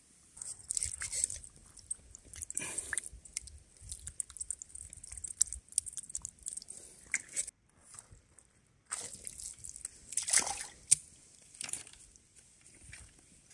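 A hand digging into soft, wet mud, making irregular squelches, squishes and sloshes with small sharp clicks, and a short pause about halfway through.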